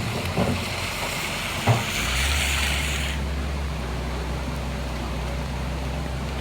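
Tropical-storm wind buffeting the microphone as a steady low rumble, with a hiss that swells for about a second around two seconds in.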